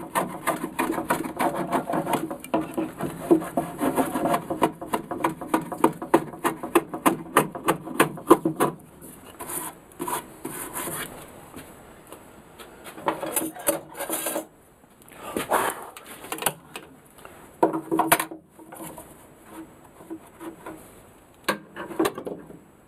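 A small hand plane shaving a pine block in rapid, short scraping strokes for about the first nine seconds. After that come fewer, scattered scrapes and knocks of wood.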